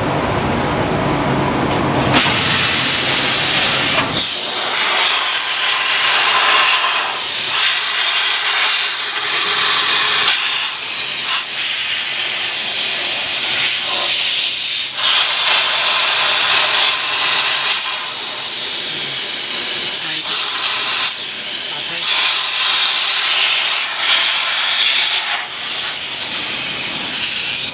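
A steady, loud hiss, like air or steam escaping. It grows stronger about two seconds in, and its low rumble drops away about four seconds in.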